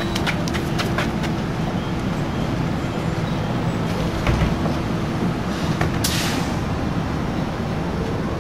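Street traffic with a city bus running at the stop, a steady rumble. Several sharp clicks in the first second, and a short burst of hiss about six seconds in.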